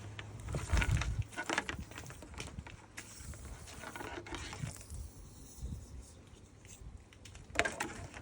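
Light rustling and small plastic clicks from handling a flat ribbon cable as it is threaded back through a hot tub topside control panel, with a small cluster near the start and another near the end.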